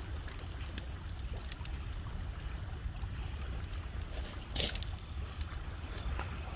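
Driftwood beach bonfire crackling, with scattered sharp pops, the loudest about halfway through, over a steady low rumble.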